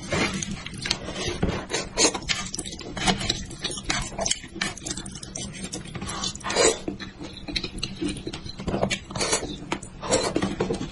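Close-miked eating of spicy braised sheep head meat: chewing, with an irregular, fast run of wet mouth clicks and lip smacks.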